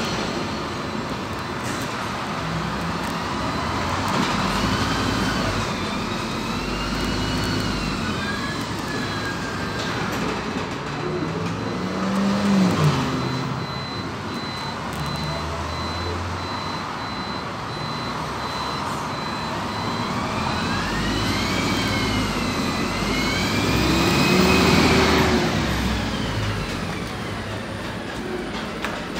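PAZ 320414-14 city bus under way, heard from on board: steady road rumble with the drivetrain whine rising in pitch and then falling as the bus speeds up and eases off, twice, about four seconds in and again about twenty seconds in.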